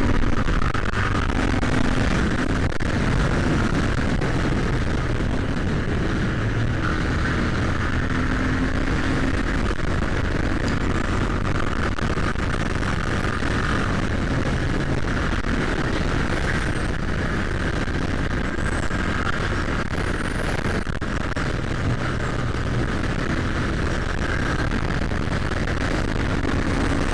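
Royal Enfield Continental GT 650's parallel-twin engine running steadily at highway speed, mixed with wind rushing over the action camera's microphone.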